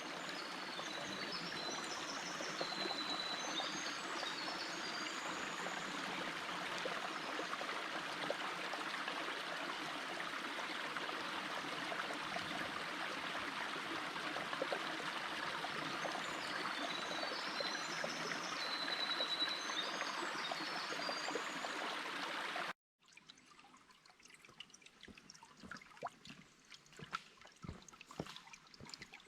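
A small, low-running creek trickling and babbling over rocks in a steady rush, with high chirping twice above it. About 23 s in, the water sound cuts off abruptly to a much quieter stretch with scattered faint clicks.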